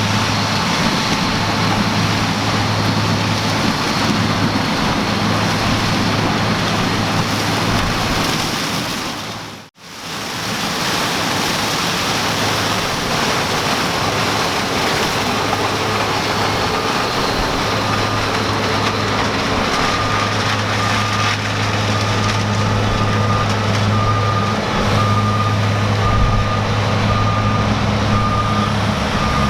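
New Holland CR 9070 combine harvester running steadily with a constant low hum while threshing maize. The sound fades out and back in about ten seconds in. From a little past halfway, a regular short warning beep sounds about once a second.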